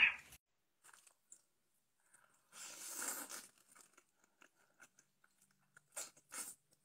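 A person eating saucy noodles close to the microphone: one slurp lasting about a second around three seconds in, small wet chewing clicks, and two short slurps near the end. A brief louder sound comes right at the start.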